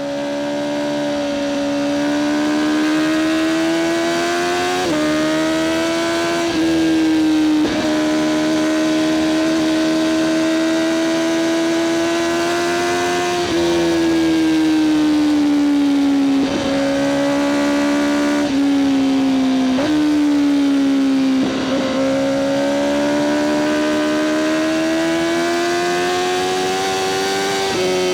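Honda CBR1000RR-R SP Fireblade's inline-four engine through an Akrapovic exhaust, running hard at high revs. The pitch holds high and drifts slowly up and down, with about eight short, sudden breaks in the tone as it changes gear.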